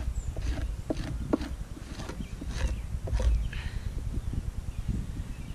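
A fleshing tool scraping fat and meat off a deer hide, in short, irregular strokes about every half second, over a low rumble.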